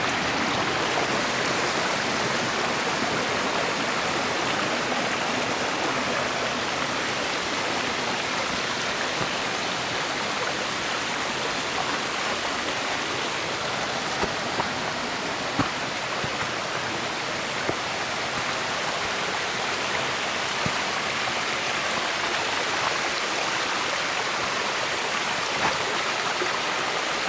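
Mountain stream water rushing steadily over smooth bedrock slabs (a nameme section), with a few faint clicks in the second half.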